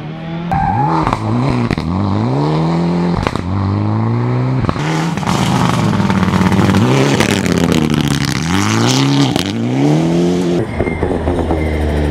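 Rally car engines revving hard, the pitch climbing and dropping again and again through gear changes and lifts off the throttle. The sound changes abruptly a few times as one car's run gives way to another's.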